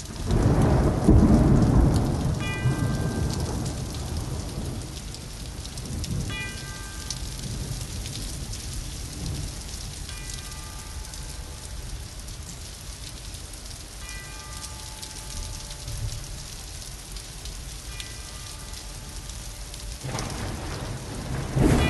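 Steady rain with a heavy rumble of thunder in the first couple of seconds and a louder swell near the end. Over it, a ringing tone strikes about every four seconds and fades away.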